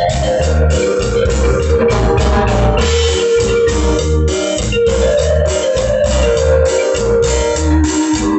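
Instrumental music with a steady, repeating beat in the low end and sustained melody tones above it.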